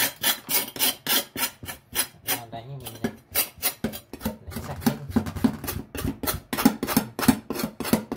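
A knife scraping the skin and slime off a softshell turtle's shell in a steel sink: a quick run of rasping strokes, about three a second.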